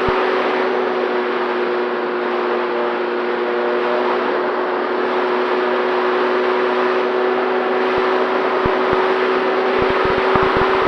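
FX-79 flying-wing model plane's motor and propeller running at a steady, unchanging pitch, with wind rushing over the airframe. Short low crackles come in near the start and again toward the end.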